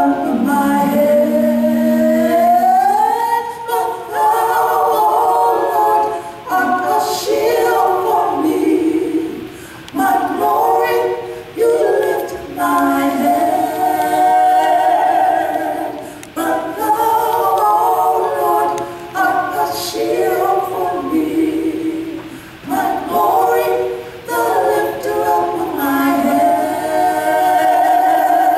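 Vocal trio of one man and two women singing a gospel song a cappella together into handheld microphones, in sung phrases with long held notes and short breaks between them.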